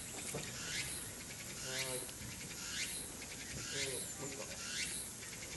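Cicadas singing: a steady high buzz with a sweeping phrase repeated about once a second.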